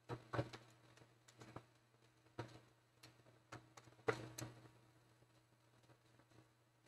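Faint, irregular small clicks and taps of fingers and a small tool on a Compaq CQ41 laptop's plastic top case and ribbon-cable connector latches during disassembly, the loudest a little past four seconds in and sparser after that.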